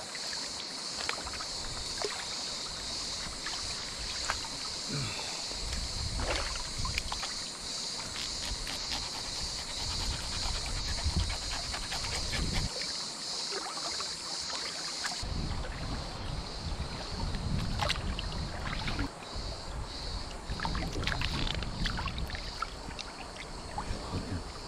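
Shallow river water splashing and trickling as a large trout is cleaned and its fillets rinsed in the current, with many small splashes and clicks of wet pebbles.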